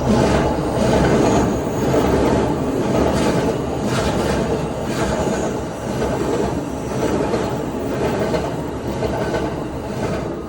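Train on the Tohoku Main Line passing close by at a level crossing: a loud, steady rumble of wheels on rail with clacks over the rail joints about once a second, dying away near the end.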